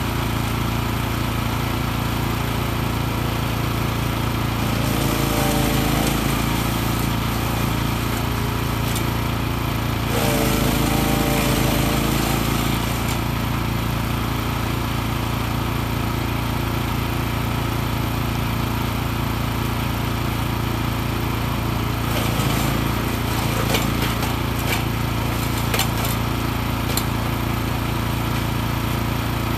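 Wood chipper with a 14 hp engine running steadily, loading up and changing note twice, about five and about ten seconds in, as brush and branches are chipped, with a few short clicks later on.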